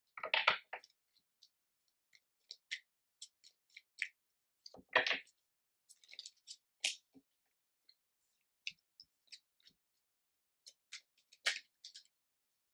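A deck of tarot cards shuffled by hand: scattered soft flicks and snaps of card edges, with a few louder rushes of sliding cards about half a second in, about five seconds in and near the end.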